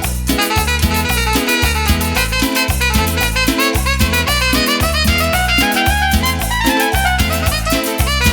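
Live tropical dance-band music: an electronic keyboard plays a lead melody over a steady bass and percussion beat, with a falling run near the end.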